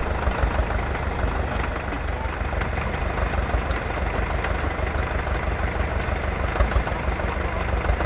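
Old tractor engine running steadily with a low rumble as it pulls a mounted plough through grass turf.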